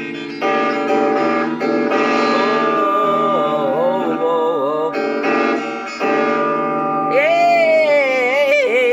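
Guitar music: held guitar chords, with a voice singing long wavering notes twice over them.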